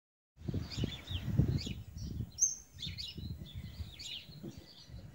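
Small birds chirping and twittering in quick short calls, with one sharper, higher call about two and a half seconds in, over irregular bursts of low rumbling noise.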